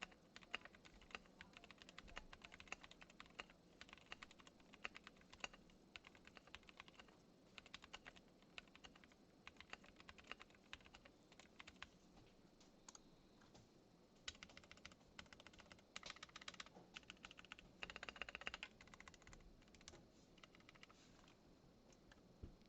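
Typing on a custom 60% mechanical keyboard with an acrylic case and linear switches (Tealios housings, UHMWPE stems, Cherry MX black springs): a fast, steady run of keystrokes, with a denser flurry about two-thirds of the way in, thinning toward the end.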